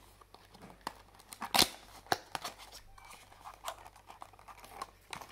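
A small cardboard box being handled and opened by hand: rustling and scraping of card with scattered clicks and taps, the sharpest about a second and a half in.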